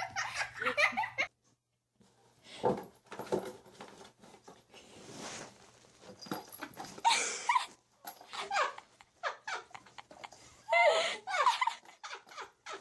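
Plastic bag rustling and crinkling in irregular bursts as a cat tussles with it, with short bursts of a person's laughter.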